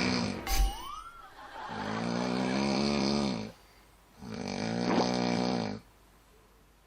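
A man snoring in his sleep: two long, low snores with a pause of about a second between them. About half a second in there is a short thump and a whistle that rises and falls.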